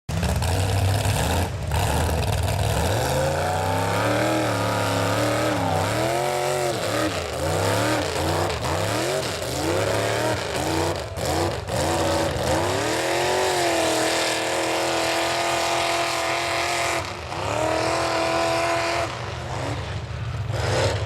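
Chevy mega truck's engine revving hard, its pitch rising and falling again and again, then held at high revs with a brief drop near the end, as it powers through deep mud.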